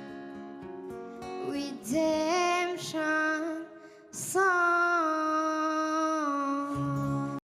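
Closing music: plucked acoustic guitar notes, then a woman's singing voice that rises into one long held note with vibrato before cutting off abruptly.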